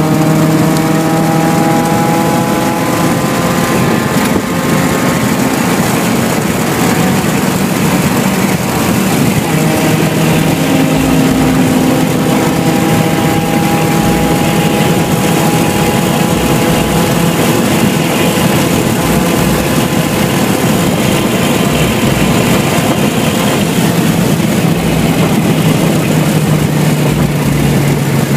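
Car engine running at low, fairly steady revs, heard from inside the cabin over loud road and wind noise. Its note falls slightly in the first few seconds.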